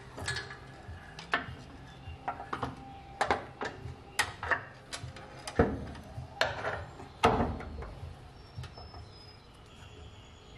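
Irregular metal clicks, clinks and knocks of steel parking-brake linkage and cable being handled and fitted by hand, with two louder knocks a little past halfway.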